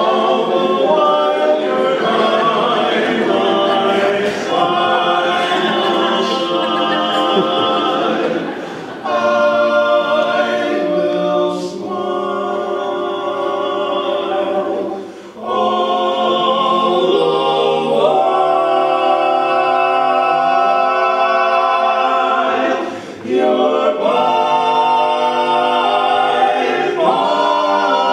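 Barbershop quartet, four men's voices singing a cappella in close four-part harmony, holding ringing chords, with short breaks between phrases.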